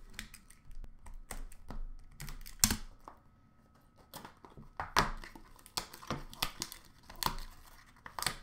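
A hockey card box being unwrapped and opened by hand: irregular crinkling and tearing of wrapping and rustling cardboard, broken by several sharper clicks and snaps.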